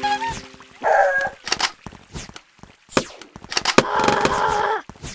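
A quick string of short comic sound effects: sharp knocks and clicks, a brief pitched sound at the start and another about a second in, and about a second of dense, rattling noise near the end.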